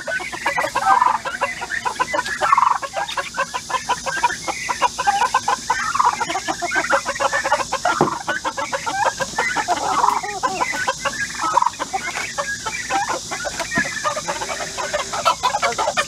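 Silkie chickens clucking continuously, a dense run of short clucks with no pause.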